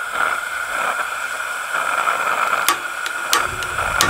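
Gas hissing steadily from a cartridge-fed portable grill burner, with three sharp clicks from a long stick lighter being fired at it, the last near the end.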